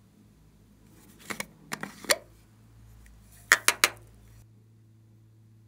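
Hard plastic container clicking and clinking as it is handled, in two quick clusters of knocks about two seconds apart, the second a run of three sharp clicks that are the loudest.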